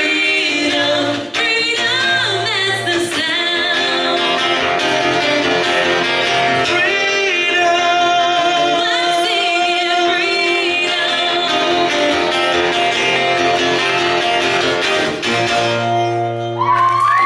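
A woman singing a country-pop song live with guitar accompaniment, the song's closing lines.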